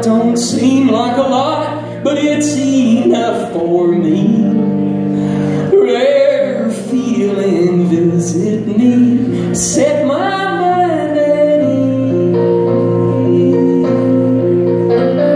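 A male singer's high voice sliding through a melody over electric guitar. About eleven seconds in, the voice stops and steady held guitar chords ring on.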